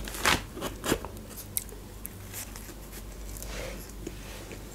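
Pizza crust crunching as a slice is broken and bitten: a couple of sharp crunches in the first second, then quiet chewing.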